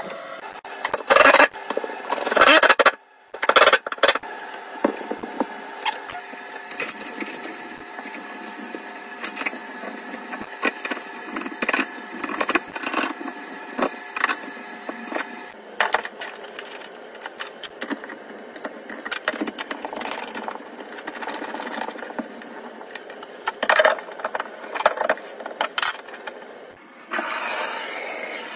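Chrome urinal flush valve being fitted and tightened by hand: scattered metal clicks, taps and scrapes, with a steady hum underneath. Near the end a steady rushing noise sets in.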